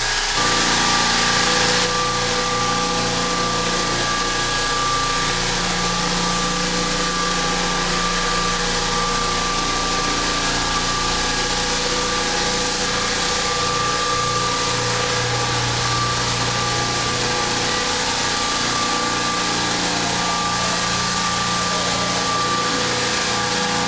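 Floor sanding machine running steadily on a wood floor, a constant motor hum with a steady whine over a broad hiss of abrasive on wood.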